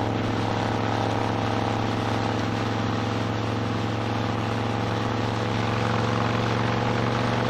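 V-twin cruiser motorcycle engine running steadily at road speed, with wind rushing over the microphone.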